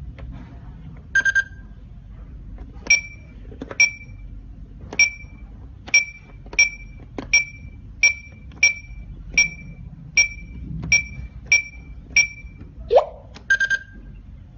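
Kerui alarm host unit giving short high electronic beeps, about fourteen of them, irregularly spaced under a second or so apart, as a run of buttons is pressed on it. A quicker, lower triple beep sounds about a second in and again near the end, and a short sliding tone comes just before the last one.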